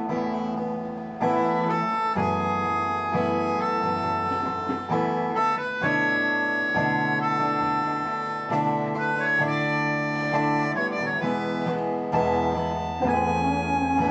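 Instrumental break: an acoustic guitar plays chords under a melody of held notes on a small hand-held wind instrument, stepping from note to note.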